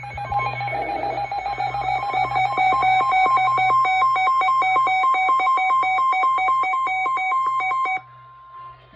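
NOAA Weather Radio alert tone, signalling that an emergency warning is about to be broadcast. A loud, high electronic tone pulses rapidly, alternating with a slightly lower tone, and cuts off sharply about eight seconds in, leaving a fainter tone that fades out.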